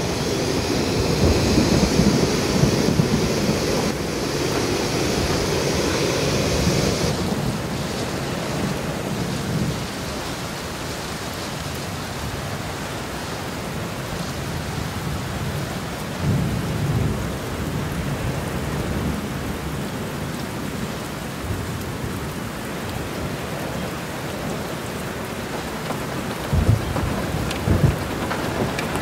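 Steady rain with low rumbles of thunder, one about sixteen seconds in and two near the end. For the first seven seconds a higher hiss, a canister camp stove's gas burner, runs over it and then cuts off.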